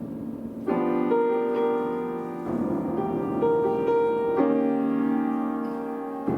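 Solo piano playing a slow bell-like passage: ringing chords struck about every two seconds, each left to sound on while single higher notes are added above it.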